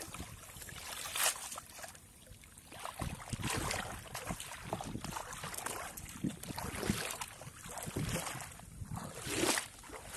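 Shallow water splashing and sloshing as a wet cast net is hauled out of it and a person wades through, in irregular surges every second or two.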